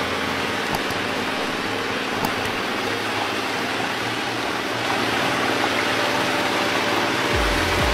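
Steady rush of water pouring into a fish pond. Music with a low beat comes in near the end.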